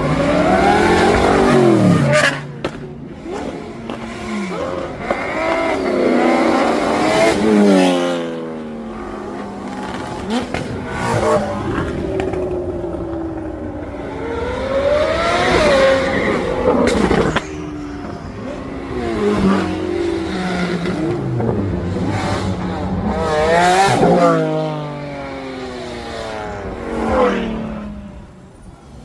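Cars accelerating hard away one after another, engines revving up through the gears, each rising in pitch and loudness as it comes past and falling away after. The loudest passes come near the start and about 7, 16 and 24 seconds in.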